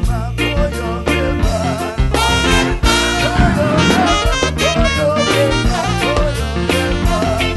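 Live gospel praise-and-worship music from a church band with saxophone, and a man singing into a microphone.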